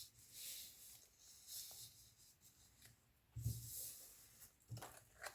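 Faint rustling and rubbing of paper as a strip is folded and creased by hand, with a soft thump on the work surface about three and a half seconds in.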